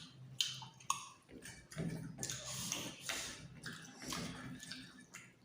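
Eating sounds close to the microphone: irregular wet chewing and mouth noises with small clicks.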